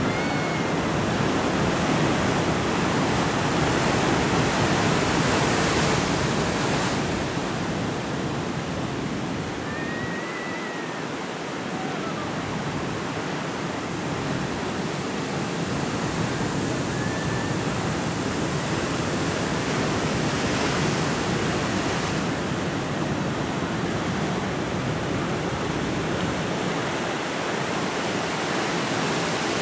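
Heavy Atlantic surf breaking on a rocky shore: a steady rushing roar of waves that swells and eases.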